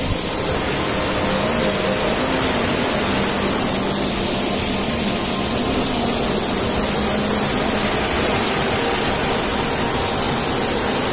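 Water of a small hill stream spilling down from a pool and rushing on downhill: a steady rushing hiss.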